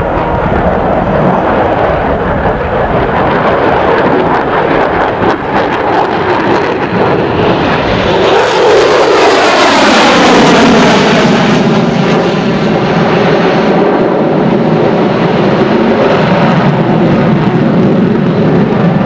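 F-14B Tomcat's twin General Electric F110 turbofan jet engines during a display pass. The noise builds, peaks about ten seconds in, then falls in pitch as the jet passes and draws away.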